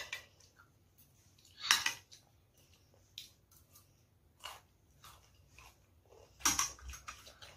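Child eating ramen noodles: a handful of short, separate slurping and chewing sounds mixed with metal chopsticks clicking against the bowls. The loudest comes about six and a half seconds in.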